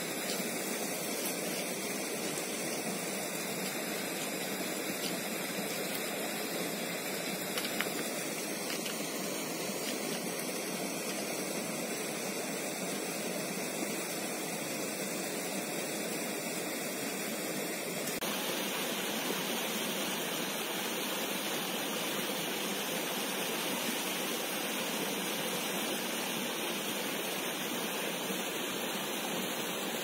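Steady rush of flowing river water, an even hiss with no other distinct sounds; its tone shifts slightly about two-thirds of the way through.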